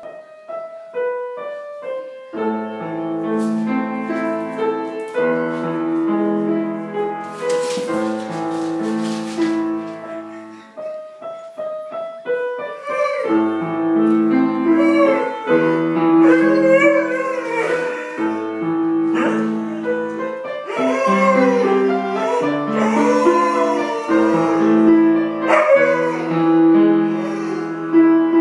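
Piano playing a slow tune in sustained chords. About halfway through, an Afghan Hound joins in, howling along in long rising and falling wails over the piano.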